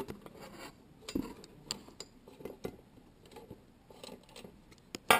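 Scattered metal clicks and clinks from the parts of an antique Yale Mono Lock being handled during disassembly, with one louder sharp click near the end.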